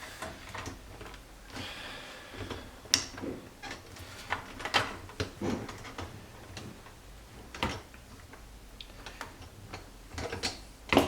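Scattered plastic clicks and knocks from a dishwasher's upper rack and its broken plastic basket adjuster being handled and worked loose.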